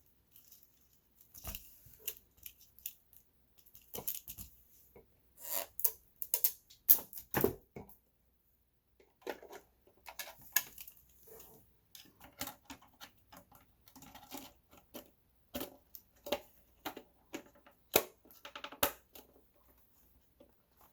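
Irregular sharp clicks, taps and light knocks of a small plastic 1/24-scale RC crawler being handled, with a few brief rustles.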